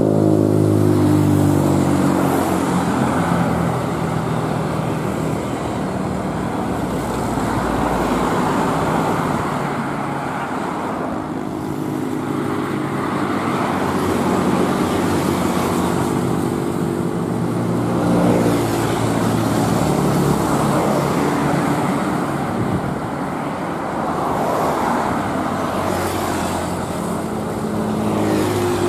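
Road traffic: a steady stream of motor scooters and cars passing on a two-lane road. Their engine notes rise and fall one after another as each vehicle goes by.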